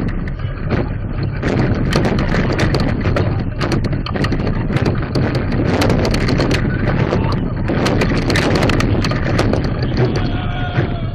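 Roller coaster train running at speed: a steady low rumble of the wheels on the track with rapid knocking and clattering, under wind rushing over an onboard camera microphone.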